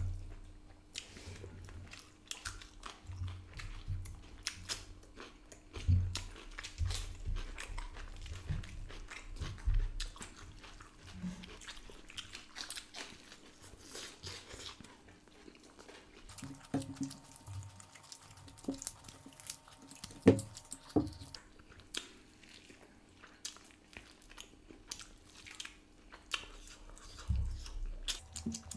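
Close-miked eating sounds: chewing and lip-smacking on mutton curry and rice eaten by hand, with irregular wet clicks, squelches and low thumps as meat is bitten off the leg bone and rice is mixed on the plate.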